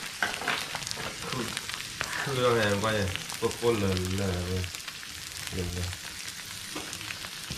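Thin-sliced beef frying on a hot flat griddle, a steady sizzle, with a person talking for a few seconds in the middle.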